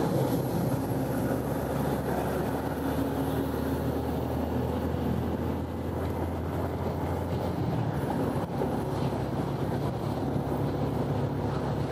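Motorbike engine running steadily while riding, with road and wind noise.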